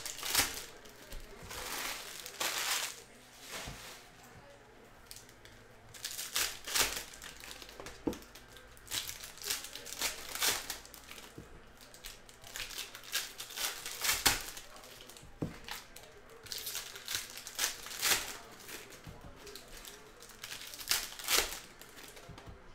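Foil wrappers of trading card packs being torn open and crinkled, in repeated crackling bursts with short quiet gaps between.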